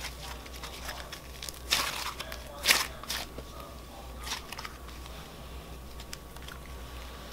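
Thick white birthday-cake slime with sprinkles being stretched and pulled in the hands, giving soft crackles and pops. Two louder pops come just under two seconds in and near three seconds in.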